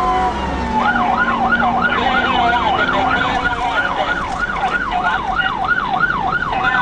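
Police car siren: a slowly falling wail for about the first second, then a fast yelp of about three rising-and-falling sweeps a second.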